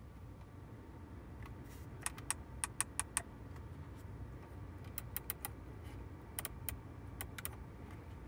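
Clicking of the knurled climate-control toggle switches on a Porsche 992 911's centre console, pressed in quick runs: six clicks about two seconds in as the temperature is stepped down, then more clicks between about five and seven and a half seconds. A low steady rumble runs underneath.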